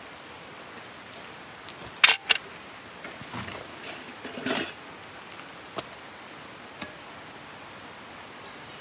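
Handling of a propane-canister camp stove and cookware: two sharp knocks close together about two seconds in, then a stretch of scraping and rustling, and two single light clicks later on.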